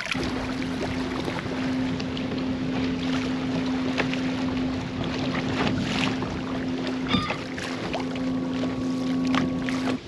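Fishing kayak under way on its motor: a steady hum over wind and water wash. A bird calls briefly about seven seconds in.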